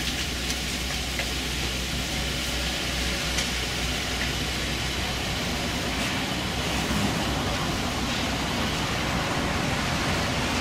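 Strong wind of a dust storm blowing, a steady rushing noise with low rumbling of wind buffeting the microphone, and cars passing on the road.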